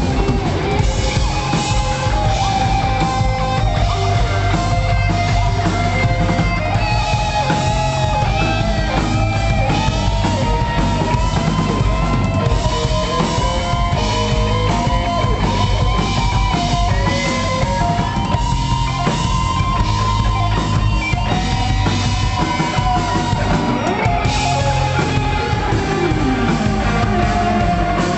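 Live rock band playing a song, with drum kit and guitar and a held, wavering lead melody line over it.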